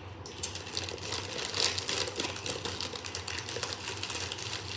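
Plastic wrapper of a chocolate-coated ice cream bar crinkling in rapid, irregular crackles as it is peeled open by hand.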